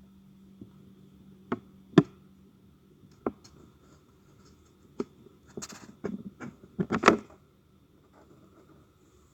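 Light clicks and knocks of kitchen handling, a few single ones and then a quick cluster of clicks and scraping near the end, over a faint steady hum.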